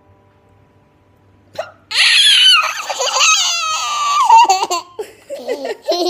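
A young girl and a woman laughing loudly, starting about two seconds in with high, swooping squeals of laughter and turning to lower, choppier laughs near the end.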